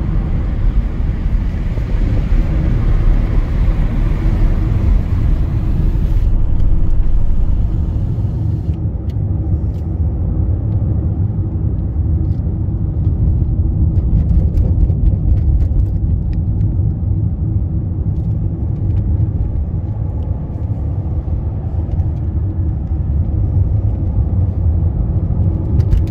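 Steady road and engine rumble heard from inside a car cabin while the car cruises along a country road, with a hiss over it that drops away about six to nine seconds in.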